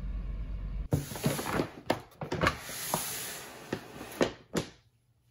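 Low rumble of a car cabin on the move, cut off about a second in. Then a paper shopping bag is handled, rustling and crinkling with sharp crackles, and it goes quiet near the end.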